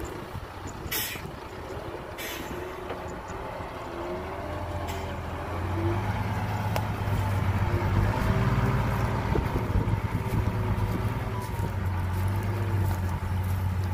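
Heavy construction-vehicle diesel engine running steadily, growing louder about five and a half seconds in, with a wavering higher tone over it. Two sharp knocks sound about one and two seconds in.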